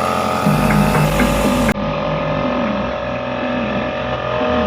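Electric sander running steadily while sanding sealer-coated teak, with a steady machine hum and a wavering low drone as it works. The sound changes abruptly, duller, just under two seconds in.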